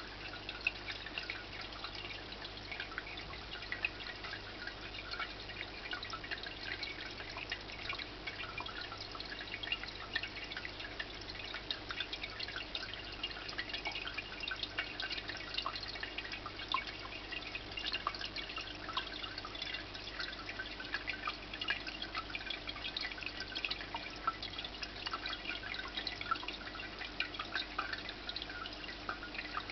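Indoor tabletop water fountain trickling and dripping: a steady, dense patter of small splashes, with a faint steady hum underneath.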